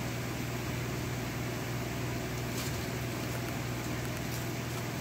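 Steady mechanical hum of a running motor, a constant low drone over even noise.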